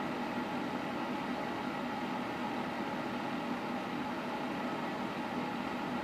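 Quartz tower space heater running: a steady, unchanging hum and hiss with a few faint held tones.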